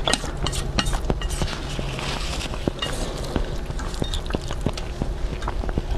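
Close-miked eating sounds: a mouthful of noodles in black bean sauce being chewed with wet smacking clicks, along with chopsticks stirring noodles in a metal bowl. There are many short, sharp clicks throughout.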